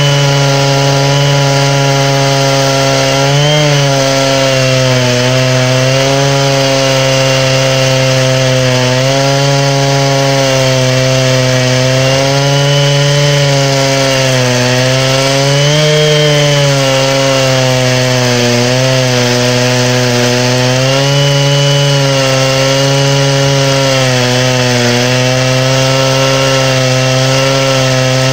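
Stihl 660 two-stroke chainsaw with a 36-inch bar and Oregon ripping chain running flat out in a Granberg chainsaw mill, ripsawing a green hickory log lengthwise under heavy load. The steady engine note dips and rises a little every few seconds as the cut loads it.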